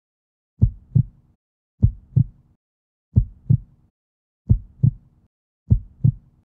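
Heartbeat sound effect: five low double thumps (lub-dub), one pair about every one and a quarter seconds.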